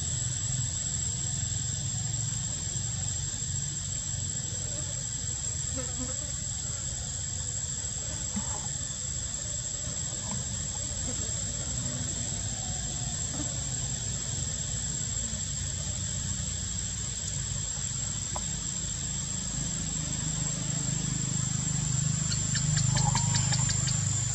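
Insects calling in a steady, high-pitched drone, with a low rumble underneath. About a second before the end, a second rapid pulsing insect call joins in and the rumble swells.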